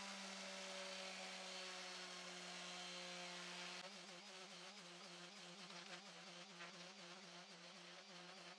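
Makita random orbital sander with a 180-grit disc running on pine, a faint steady hum. About four seconds in the hum turns uneven and pulsing.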